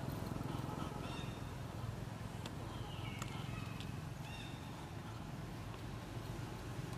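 Outdoor ambience: a steady low rumble with a few short, high chirps and some faint clicks.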